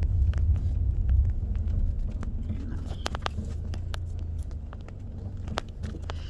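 Low road rumble inside a moving car, easing off about two seconds in as the car slows, with scattered small clicks and rattles.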